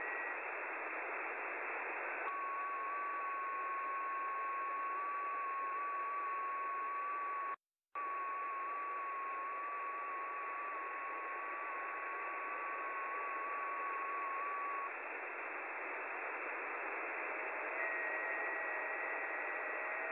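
Shortwave receiver audio on the 12-metre amateur band: steady band hiss with FT8 digital-mode signals, thin steady tones. The strongest sits near 1 kHz, comes in about two seconds in and lasts about thirteen seconds, one full FT8 transmission, while fainter FT8 tones start up near the end. The audio cuts out completely for a moment about eight seconds in.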